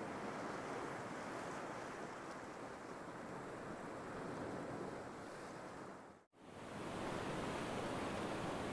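Sea surf on a beach: a steady rush of breaking waves that briefly fades out about six seconds in and fades back.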